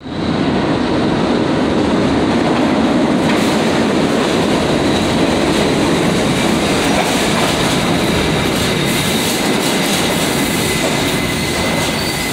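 An R68 subway train pulling into an underground station: its steel wheels on the rails make a loud, steady rumble that gets brighter as it enters the platform. A faint high squeal comes in near the end as it slows alongside the platform.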